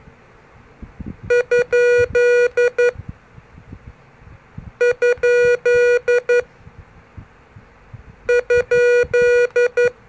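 MFJ-403 pocket CW keyer's sidetone beeping Morse code from its paddles: the question mark (dit-dit-dah-dah-dit-dit) sent three times as three separate bursts, a buzzy tone near 500 Hz. In CW this asks whether the frequency is in use before calling CQ.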